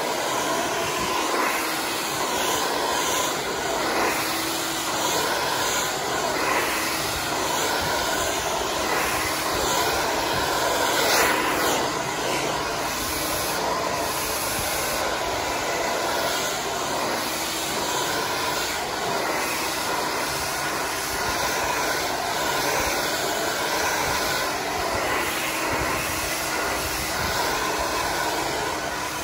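Handheld hair dryer with a concentrator nozzle running continuously, a steady rush of air with a faint steady tone, as it blows hair wound on a round brush. It swells slightly about eleven seconds in.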